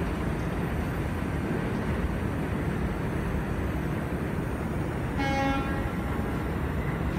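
Steady low rumble of an R160B subway train running away along the elevated line. About five seconds in comes one brief horn toot.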